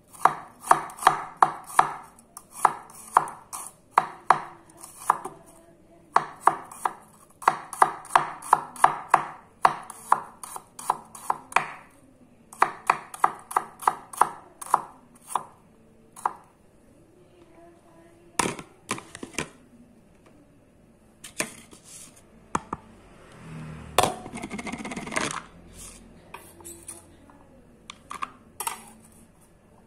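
Sakai Takayuki Damascus gyuto chef's knife chopping shallots on a wooden cutting board: quick runs of knocks, about three a second with short pauses, thinning to scattered single cuts after about the halfway point. A longer rustling noise comes about two-thirds of the way through.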